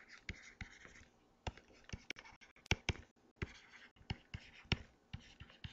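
Stylus tapping and scratching on a tablet while handwriting: a faint run of irregular clicks and light scrapes, with a few sharper taps about halfway through.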